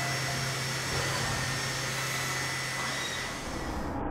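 CNC machining centre face-milling an aluminium cylinder head: a steady whirring hiss of the spindle and cutter, with a few steady tones in it. Right at the end the sound turns suddenly muffled.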